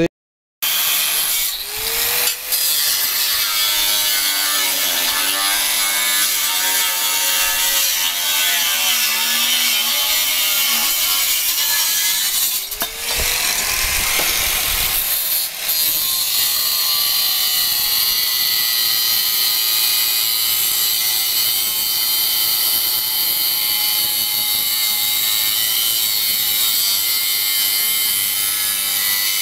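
Handheld angle grinder with a cutting disc cutting through a steel plate, a loud steady high-pitched hiss and whine. The motor's pitch sags and recovers a few times in the first half as the disc bites, then the cut runs on steadily.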